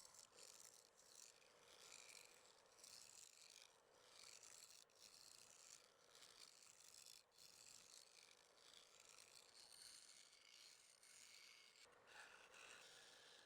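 Faint, irregular rubbing and scraping, with no speech or music.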